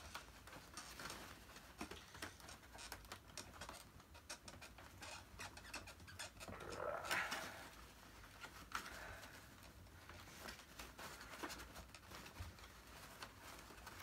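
Paper vacuum dust bag being handled and pushed into the plastic bag housing of a vintage upright vacuum cleaner: faint rustling and irregular small clicks, with a louder rustle about seven seconds in.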